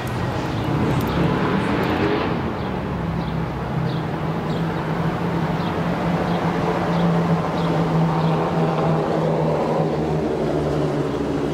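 A car driving: steady engine and road noise with a low hum, and a faint ticking repeating a little under twice a second.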